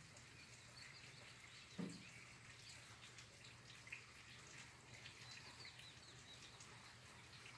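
Near silence: faint rain dripping with faint bird chirps, and one brief soft knock about two seconds in.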